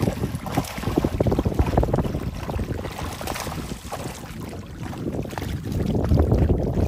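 Water splashing and running through the mesh of a fishing trap net as it is hauled up, with fish thrashing inside. The splashing grows louder near the end.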